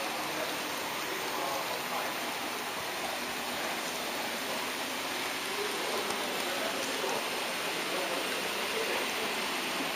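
Steady rushing noise of an HO-scale model train rolling along the track, picked up by a camera riding on the train.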